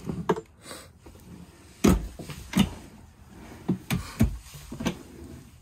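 Camper kitchen cabinet drawers being pulled open and pushed shut: a string of short knocks and thuds, the loudest about two seconds in and a cluster near four seconds.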